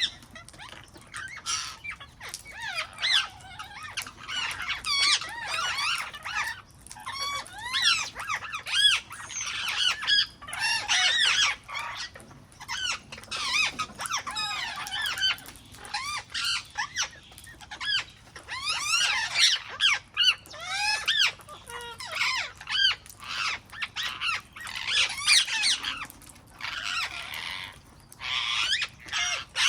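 A flock of wild parrots squawking and chattering, many harsh, arching calls overlapping, with a few brief lulls.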